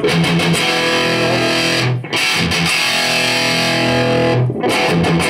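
Distorted electric guitar chords played through an RP tube amplifier head with two KT88 power tubes, ringing on between brief stops about two seconds in and again near the end where the chords are re-struck. The amp's midrange control is being turned as it plays.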